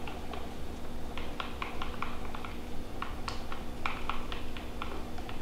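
A stirring utensil clicking and tapping against the sides of a plastic mixing cup while two-part epoxy resin is stirred by hand. The clicks are light and irregular, a few a second.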